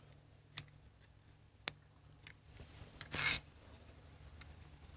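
Faint handling of small metal parts while a Linkert carburetor's float level is checked with a steel ruler: two sharp clicks about a second apart, then a brief scrape about three seconds in.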